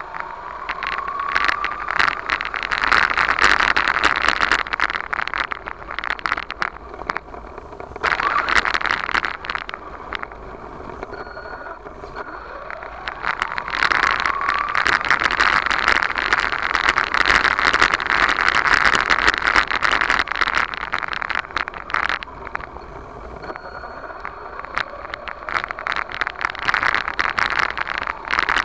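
RC monster truck's motor whining up in pitch each time it accelerates, several times over, with a dense crackling rattle of tyres and chassis running over rough dirt. It is heard from the truck's own onboard camera.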